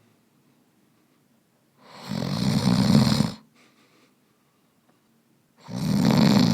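A man snoring in his sleep: two snores, each lasting about a second and a half, the first about two seconds in and the second near the end.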